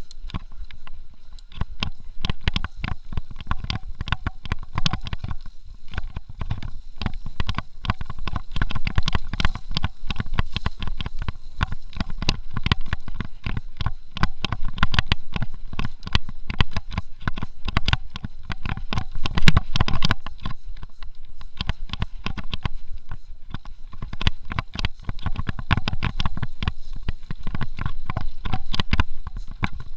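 Mountain bike riding fast over a bumpy dirt singletrack: a continuous, irregular clatter of knocks and rattles from the bike over roots and rocks, over a strong low rumble from tyres on dirt.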